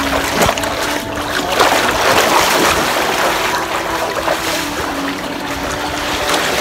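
Swimmers kicking and stroking through the water of an above-ground pool: steady splashing and churning water.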